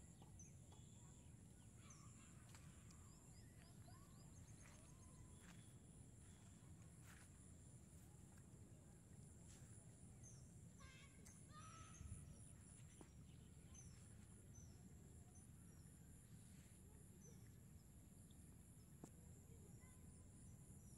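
Faint rural ambience: a steady high insect drone with a pulsing chirr, and scattered short bird chirps.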